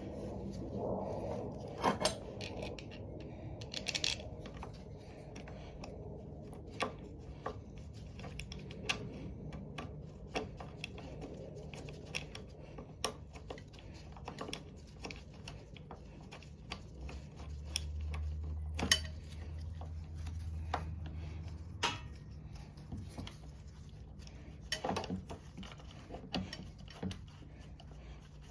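Scattered clicks and clinks of tools and small metal parts being handled and fitted, with a low hum for a few seconds past the middle.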